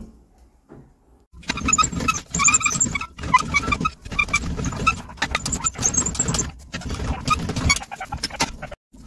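Hand-cranked tube bead-rolling tool clamped in a vice, squeaking and grinding as its rollers press a bead into the end of a metal boost pipe. It comes in uneven strokes of the crank with short breaks, starting about a second and a half in.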